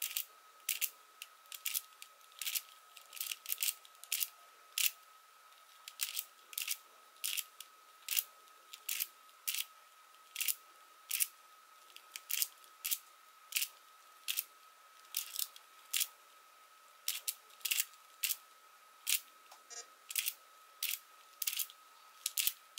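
GiiKER i3SE smart cube (a 3×3 Rubik's-type puzzle cube) being turned by hand: its plastic layers clack with each turn, an uneven run of short clicks about one to two a second, some coming in quick pairs.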